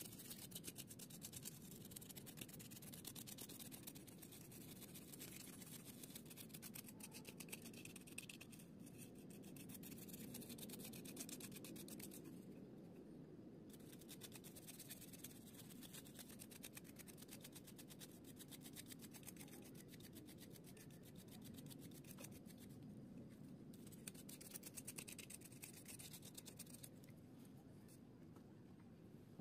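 A wooden stick brush with a fibrous tip scrubbing a printed circuit board. The faint, continuous, fast scratchy rubbing of the fibres goes on without a break.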